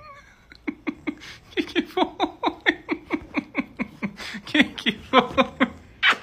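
A woman laughing in a long run of short, quick bursts, each dropping in pitch, about four a second, starting about half a second in.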